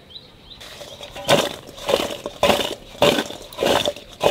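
Chopped raw mango pieces sliding and tumbling in a steel bowl as it is shaken to coat them with salt and turmeric: a rhythmic swishing rush a little under twice a second, starting about a second in.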